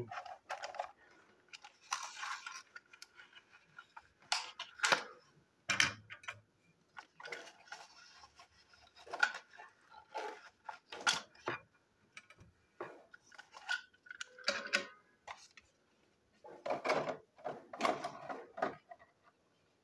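Plastic toy train engine and tender being handled and set down on a table: irregular clicks, knocks and scuffs.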